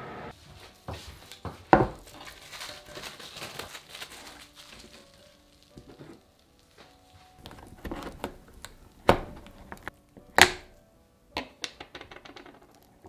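A small metal tin of corned beef handled on a wooden table: scattered knocks and clinks of the can, with a rustling stretch about 2 to 4 seconds in and the sharpest knocks about 2, 9 and 10 seconds in.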